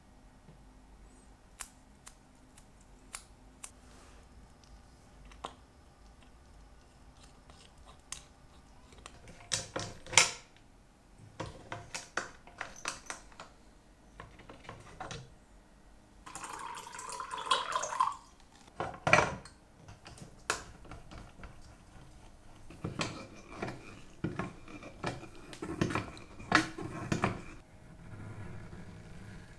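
Small clicks, taps and scrapes of hands handling watch parts and then the metal lid and knobs of a watch water-resistance tester, with a few sharper clicks and short rustling scrapes between quiet stretches.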